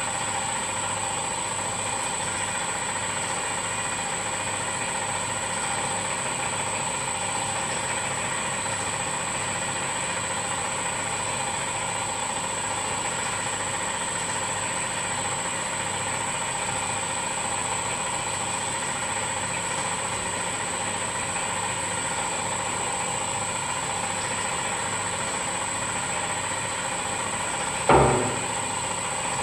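Boutelje Honey Auger running steadily as it grinds crystallised honey: an even machine hum with a high whine and a faint low throb. A single sharp knock comes near the end.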